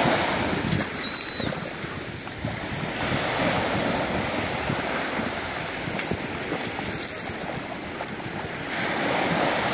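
Small waves breaking in the shallows and washing up a sandy beach: a steady rush of surf that swells near the start, again about three seconds in, and once more near the end.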